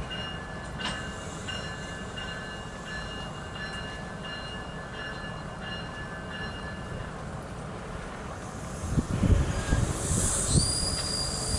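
Commuter train at a station platform, its wheels giving thin, steady high squeals that come and go. About nine seconds in, low rumbling buffets grow louder and a stronger high-pitched wheel squeal sets in near the end.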